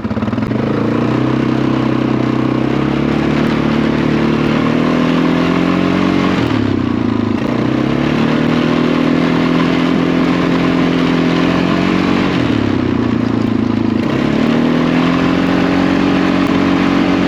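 Four-wheeler (ATV) engine running under way, loud and close. Its pitch climbs slowly and drops sharply about six seconds in, again around twelve seconds in, and near the end.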